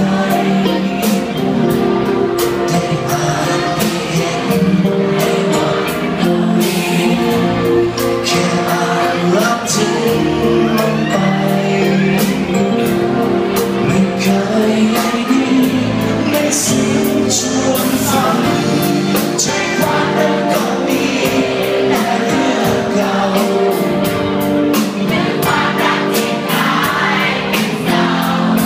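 Live band playing, with a man singing into a microphone over keyboards and a steady drum beat.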